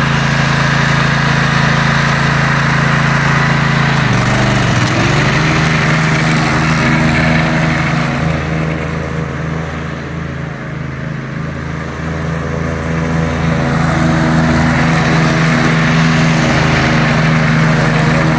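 Greenfield ride-on lawn mower engine running steadily as it mows. Its note dips and settles about four seconds in, then it grows fainter in the middle as the mower drives off and louder again near the end as it comes back.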